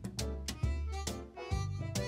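Instrumental background music, a run of short pitched notes each starting sharply.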